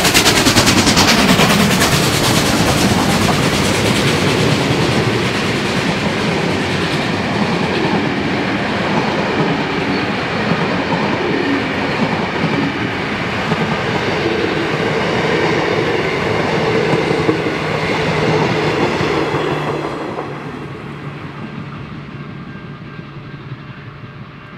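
Steam-hauled train of heritage carriages rolling past, wheels clicking over the rail joints, then fading steadily from about twenty seconds in as the train moves away.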